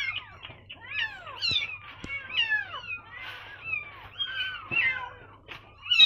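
Very young kittens, eyes still shut, mewing again and again: short, high cries that slide down in pitch, about two a second and sometimes overlapping. These are the cries of hungry orphaned kittens.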